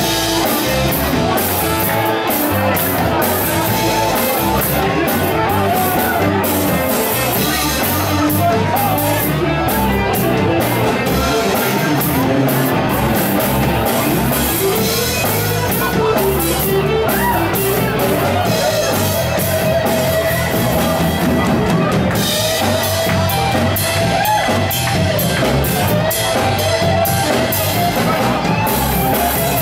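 Live rock band playing loud: a drum kit driving a steady beat under electric guitar, with a singer.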